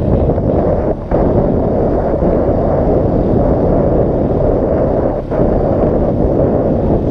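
Honda Recon 250 ATV being ridden: a steady low rumble of the engine mixed with heavy wind buffeting on the microphone, dropping briefly about a second in and again about five seconds in.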